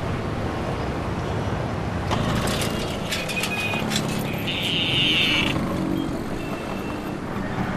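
Busy street ambience: steady traffic noise with scattered clatter, and a brief high-pitched sound about five seconds in.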